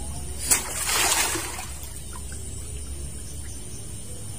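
A sharp click, then a short splash of water lasting about a second.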